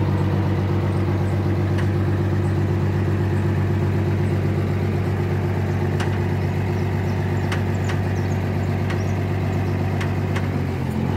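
Small truck's engine idling steadily, with a few light clicks or knocks over it.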